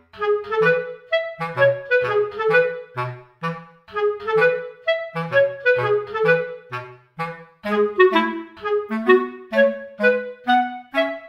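Background music: a bouncy woodwind tune of short, detached notes over a lower bass part.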